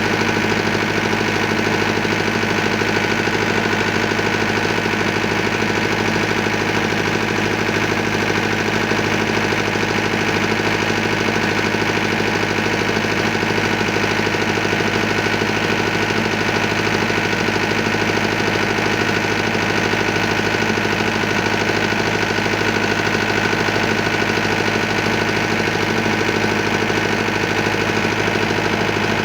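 Mahindra diesel generator engine running steadily at a constant speed after repair. It is loud and unchanging throughout, with a fast, even firing pulse.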